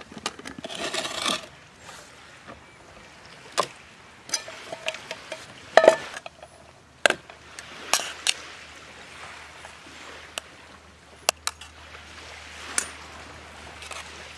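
Camp cookware and utensils being handled: scattered clinks and knocks, some ringing briefly, with a quick rattle of small clicks about a second in.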